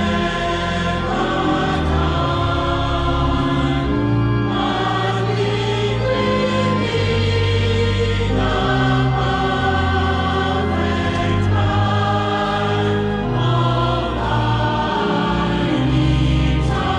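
Choir singing, voices held in long chords over a low bass that change every second or two.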